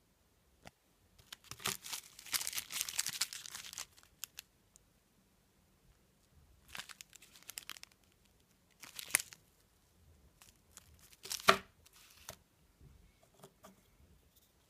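Paper wrapper of a pack of Le Tigre E-4 firecrackers crinkling and rustling as it is handled, in several bursts: a long one near the start, shorter ones later, and the sharpest, loudest crackle about two thirds of the way through.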